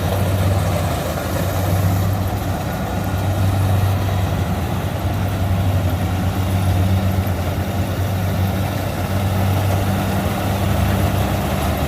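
Rice combine harvester's diesel engine running steadily, a constant low hum with no change in speed.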